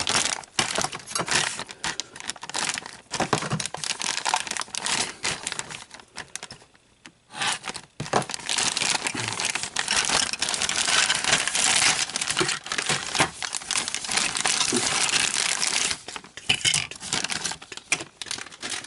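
Plastic packaging crinkling and tearing as a model kit's parts are unwrapped, with a short lull about seven seconds in and a long unbroken spell of crinkling after it.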